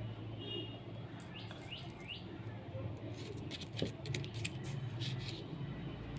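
A few short bird chirps in the background. A little later comes a cluster of light clicks and a thump as a spoon tips brown country-sugar granules into a small glass jar of rose petals.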